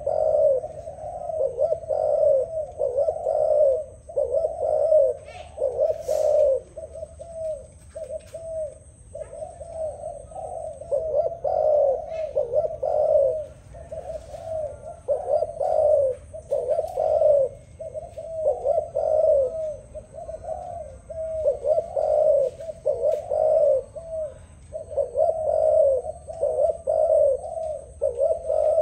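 Spotted dove cooing over and over: a run of rolling, pitch-bending coo phrases, each about a second long with short breaks between them.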